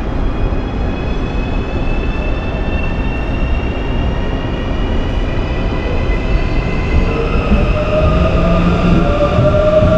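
Electric commuter train accelerating: its traction motors whine in several tones that climb steadily in pitch over the rumble of the running train. A lower rising whine joins about seven seconds in.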